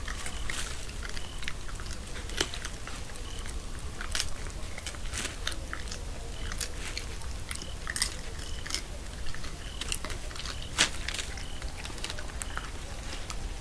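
Irregular sharp crunches and clicks from an animal among scattered bones, over a steady low hum, with short high peeps now and then.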